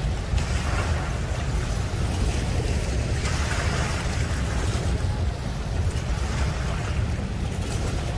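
Sun Tracker pontoon boat's outboard motor running steadily, churning water against the concrete ramp, with wind buffeting the microphone.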